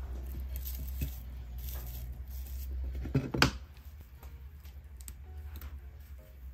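Dried flowers and stems rustling and crackling lightly as they are handled and pushed into a dried-flower wreath, with one short, sharper crackle a little over three seconds in.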